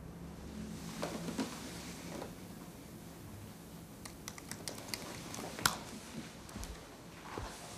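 Typing on a laptop keyboard: an irregular run of light key clicks in the second half, ending on one sharper tap.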